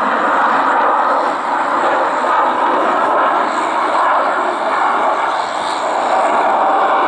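Steady, loud jet noise from a MiG-29M2 fighter's twin jet engines during a close display pass.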